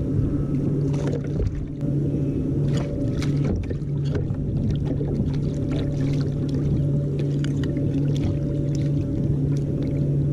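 Water splashing with scattered knocks as a hooked kingfish (narrow-barred Spanish mackerel) thrashes at the surface beside a kayak, over a steady low hum.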